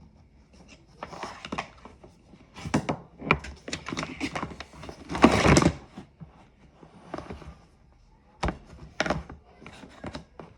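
Handling noises of objects being moved about: an irregular run of clicks and knocks, a short louder scraping rustle about five seconds in, and two sharp knocks near the end.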